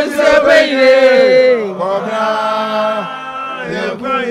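Men chanting an Asafo company song, voices only, in long held notes; the first note falls away about a second and a half in and a new one is taken up soon after.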